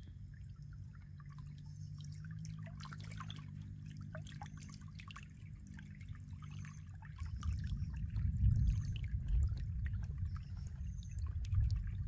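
Muddy water running and trickling along a shallow stream channel, with scattered small splashes. The flow grows louder and heavier from about seven seconds in.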